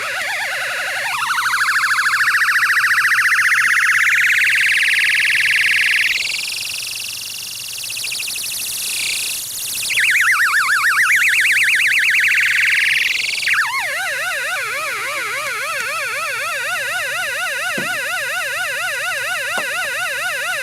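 Two-555-timer sound effects generator making a buzzy electronic tone whose pitch is steered by light, played like a theremin. The pitch sweeps up in the first couple of seconds and holds high, then is wobbled quickly by the second, low-frequency 555. In the last third it settles into an even, siren-like warble.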